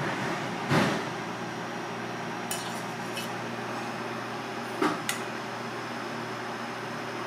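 Kitchen utensils clinking over a steady background hum: a knock about a second in, then a few short metallic clicks, two of them close together near the five-second mark, as metal chopsticks tap a stainless-steel strainer.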